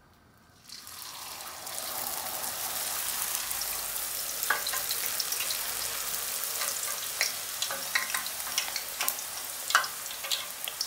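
A thin sheet of trid dough frying in hot oil in a pan. The sizzling starts about a second in, builds quickly and then holds steady, with scattered crackles and pops.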